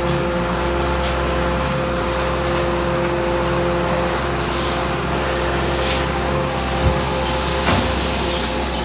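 Hydraulic power unit of a Y81S-630T metal baler running with a steady hum and whine. There are two short hissing surges partway through and a few light knocks near the end.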